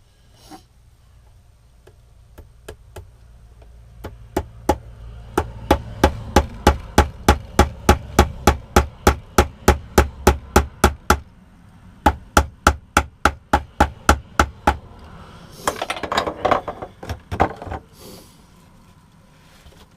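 Hammer driving panel pins into plywood. A few scattered taps come first, then two long, even runs of blows at about three a second with a short pause between, and a few seconds of rough noise near the end.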